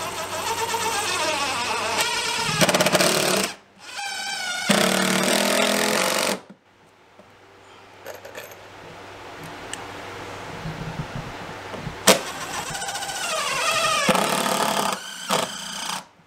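Cordless impact driver driving screws into wood framing. It runs in several bursts of a few seconds each, with the motor pitch rising and falling as each screw is driven.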